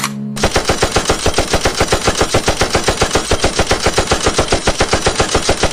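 Rapid, evenly spaced rattle of strikes, about ten a second, starting abruptly a moment in and keeping a steady pace.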